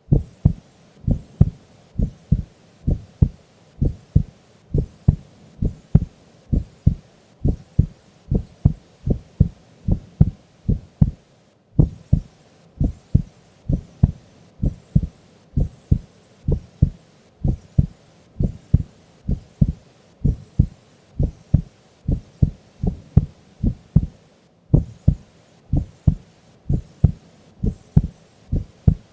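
Heartbeat of a sleeping woman: a slow, steady lub-dub of about one beat a second, low-pitched and even.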